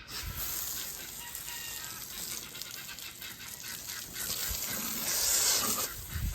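Water from a hose spraying hard onto the ground, washing away stucco splatter and mud; it switches on abruptly and gets stronger about five seconds in. A sharp thump at the end.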